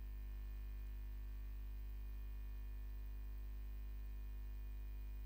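Steady low electrical hum with faint hiss from the live commentary audio feed, with no other sound.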